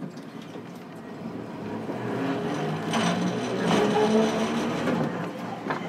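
Hiroden 700 series tram running, heard from inside the car: motor and running noise rises over the first few seconds as it gathers speed, then holds steady with a click near the end.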